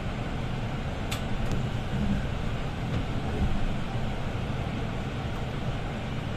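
Setra S 415 LE business bus heard from inside the passenger cabin: a steady low diesel engine hum and rolling noise as it drives slowly. There are two brief clicks about a second in.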